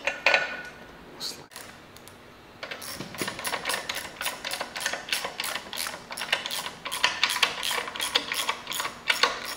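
Hand socket ratchet clicking in a fast, steady run from about three seconds in, as nuts are run down onto the outboard's lower-unit studs.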